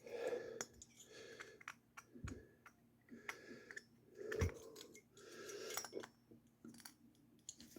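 Faint handling noise of small tools and engine parts on a workbench: scattered light clicks and rustles, with two soft thumps.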